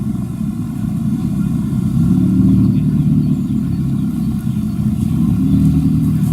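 Car engine and exhaust rumbling at low revs, a steady low note that rises and falls slightly in pitch.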